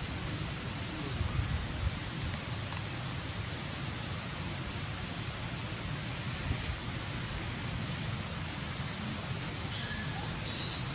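Steady insect drone, a constant high-pitched buzz over an even outdoor hiss and low rumble, with a few brief higher sounds near the end.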